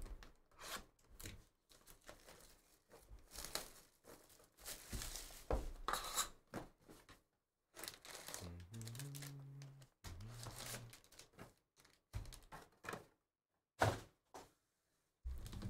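Plastic wrap and cardboard of a sealed trading-card hobby box being torn open, then foil card packs pulled out and stacked. The sound is irregular crinkling and tearing, coming in short bursts with brief pauses.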